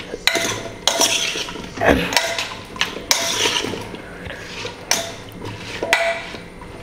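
A steel spoon stirring chunks of raw tender jackfruit in a little water inside a pressure cooker pot, in repeated irregular strokes of scraping and clinking against the pot.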